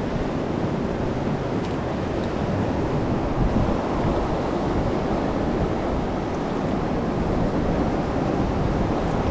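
Steady rush of sea surf washing against the shore rocks, with some wind noise on the microphone.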